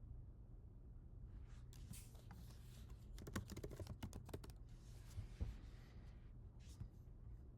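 Typing on a computer keyboard: a quick run of key clicks, then a few scattered keystrokes near the end.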